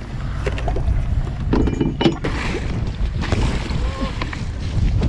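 Wind buffeting the microphone and choppy water slapping against a small boat's hull, with a few sharp knocks as the jugline and jug are handled at the gunwale.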